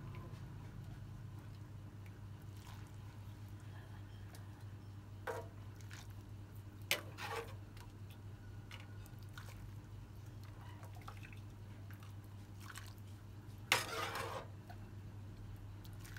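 Broth being ladled into a ceramic soup bowl: a few short splashes, about five, seven and fourteen seconds in, the last the loudest, over a steady low hum.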